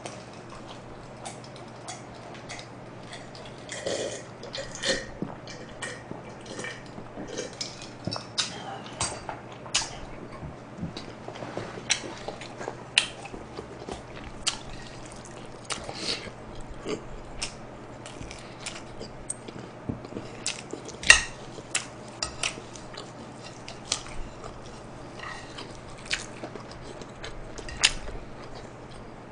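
Close-up eating sounds: chewing and wet mouth smacks, with scattered light clicks of a fork against a plate.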